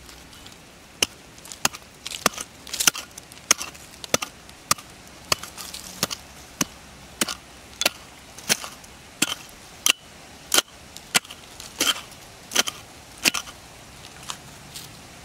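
A small metal-headed digging tool chopping into firm soil again and again, about one sharp strike every half second or so, some twenty strikes in all, stopping shortly before the end.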